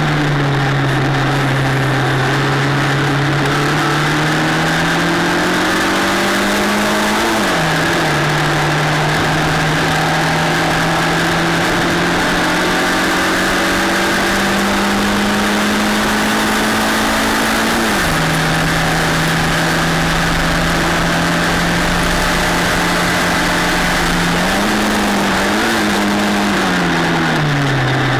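Onboard sound of a Formula LGB F4 single-seater race car's engine at racing speed. The engine note climbs steadily and drops sharply twice, about a quarter of the way in and just past halfway, as the driver shifts up. Near the end it rises briefly and then falls away.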